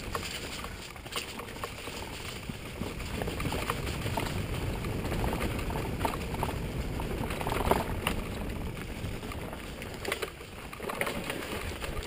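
Mountain bike rolling fast down a rough dirt singletrack: tyres on the dirt and the bike rattling and knocking over bumps, with a steady rumble of wind on the microphone. A louder knock comes near eight seconds in.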